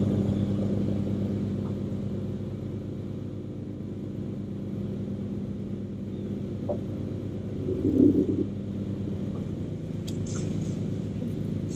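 Steady low electric motor hum from the bass boat's bow-mounted trolling motor, holding position while fishing, with a louder low rumble about eight seconds in.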